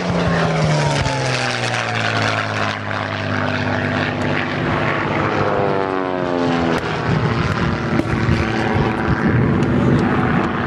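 Aerobatic biplane's piston engine and propeller during a display, its note falling in pitch over the first few seconds and falling again about midway as the plane manoeuvres.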